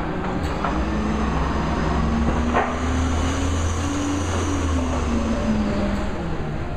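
A steady low mechanical rumble with a hum that rises in pitch and then falls again over several seconds, and a single metallic clank about two and a half seconds in.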